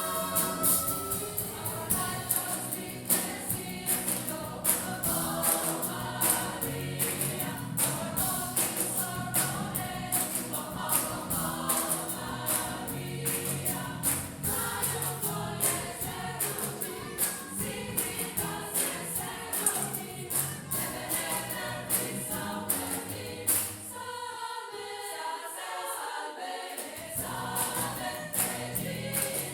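Choir singing an upbeat gospel-style song with accompaniment, driven by a steady beat of sharp strikes. The low accompaniment drops out for a few seconds near the end.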